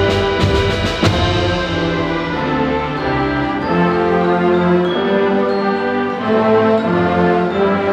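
Orchestra playing slow, sustained chords with brass, with a quick run of percussion strikes in the first second.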